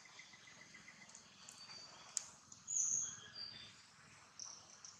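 Birds chirping in short high notes over a faint steady hiss, the loudest note about three seconds in, with one sharp click just after two seconds.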